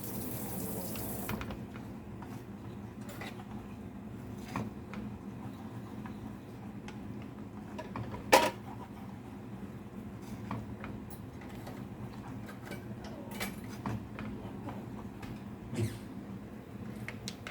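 A utensil stirring in a pan, with scattered light clinks and scrapes against the pan and one sharp clink about eight seconds in. A steady hiss at the start stops after about a second.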